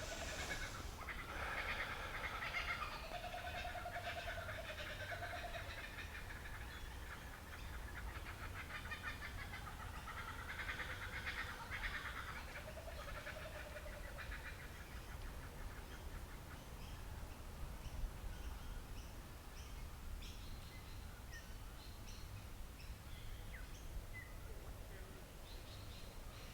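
Kookaburras calling in a chorus of rapid chuckling calls that die down about halfway through, leaving scattered faint bird chirps.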